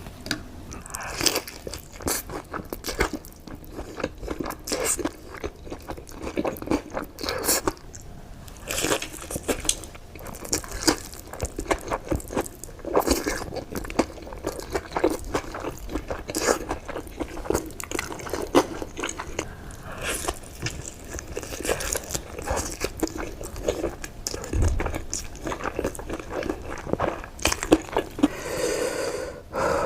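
A person eating close to the microphone: steady biting and chewing with many short crunchy, crackling bites.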